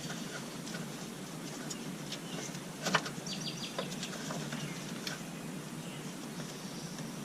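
Faint scattered clicks and taps of hand work on parts, with one sharper click about three seconds in, over a steady low hum.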